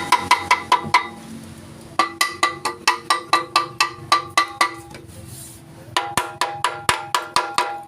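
Hammer blows on ringing metal, struck fast in three bursts of about five or six blows a second with short pauses between, each blow leaving a bell-like ring.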